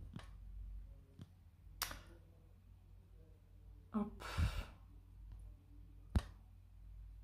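A woman sighs, a breathy exhale about four seconds in, with a few short soft clicks scattered before and after it over quiet room tone.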